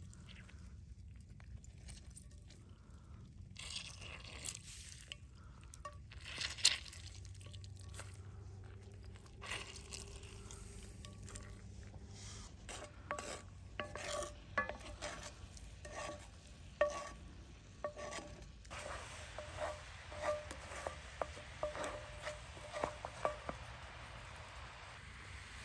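Grapefruit juice sizzling on sugar in a hot cast iron pan, with scattered sharp pops. In the latter part a steadier hiss comes in as a wooden spoon stirs and scrapes the syrup against the pan.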